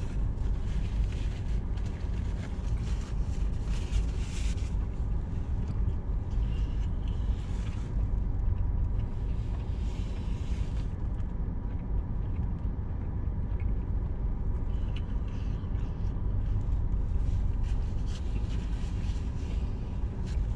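Steady low rumble inside a parked car's cabin, typical of the car's idling engine, with scattered soft chewing and rustling noises on top.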